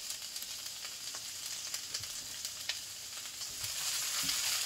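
Sliced onions sizzling in oil in a cast iron skillet while being turned with tongs, with a few light clicks against the pan. The sizzle grows a little louder near the end.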